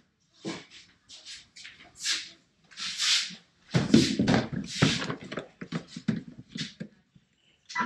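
Handling noise from a Craftsman shop vacuum and its hose being carried over and set down: irregular rustles, scuffs and plastic knocks, loudest about four seconds in.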